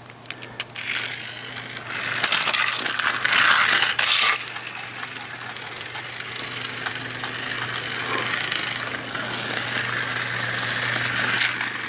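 Small battery-powered toy school bus running along flexible plastic snap-together track: a few clicks near the start, then a steady whirring rattle of its motor and plastic wheels over the linked track segments.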